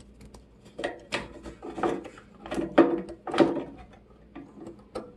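Handling noise from a microwave's high-voltage capacitor and its wiring being moved about in the open sheet-metal chassis: about five short bursts of rubbing and scraping, then a few light clicks near the end.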